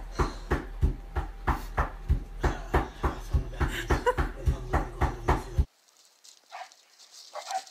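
A dog making a rhythmic sound, about three short beats a second, over a low hum. It cuts off abruptly about two seconds before the end, leaving only faint sounds.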